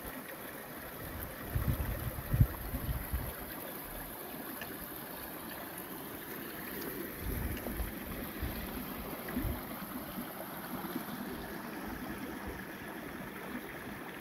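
Small shallow creek running steadily over rocks and gravel, with a few low thumps, the loudest about two seconds in.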